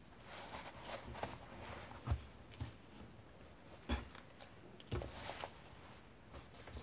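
Vintage paper pages and layered fabric of a thick handmade junk journal rustling as the closed book is handled, with a few soft knocks against the table.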